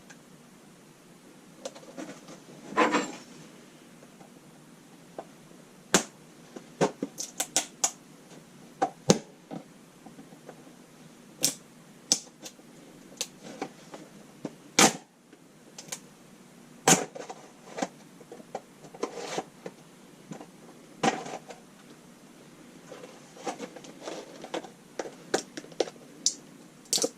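Scattered sharp clicks and taps, irregular, with a longer rustle about three seconds in: a new chainsaw chain and its packaging being handled and unpacked.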